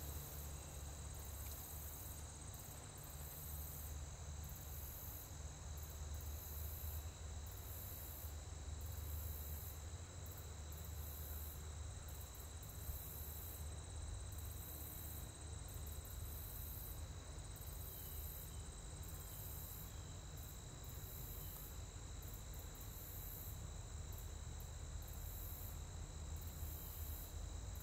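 Insects trilling in a high, pulsing chorus, with two steady high whines and a strong steady low rumble underneath: outdoor ambience of an operating gas processing plant.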